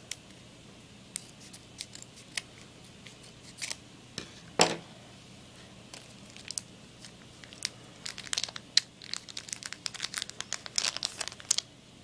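A trading card booster pack's wrapper being torn open and crinkled. It comes as scattered crackles, with one louder crackle a little before halfway and a denser run of crinkling in the last few seconds.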